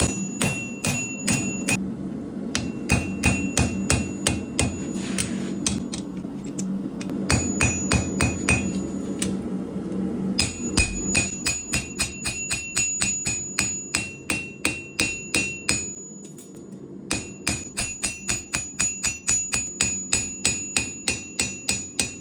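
Hammer blows on hot steel at the anvil, about three a second, in runs with short pauses, each run carrying a high metallic ring. A steady low hum runs underneath.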